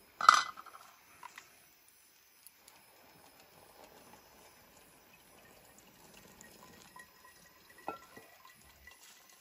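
Hot water poured from a metal pot into a cone coffee filter on a thermos flask, a faint steady trickle. It opens with a sharp metallic clank as the pot is taken up, and a lighter knock comes near the end.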